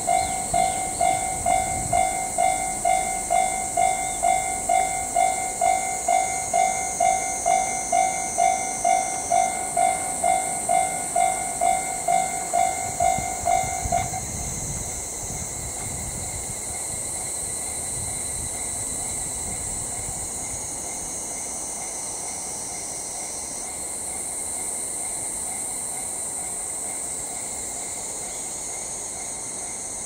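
Japanese level-crossing alarm ringing its electronic bell about twice a second, warning of an approaching train, then stopping abruptly about fourteen seconds in. A steady high-pitched insect chorus carries on throughout.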